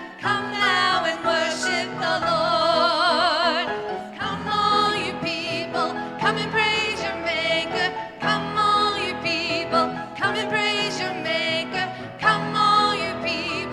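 Church music: a voice sings sustained notes with wide vibrato over a sustained accompaniment.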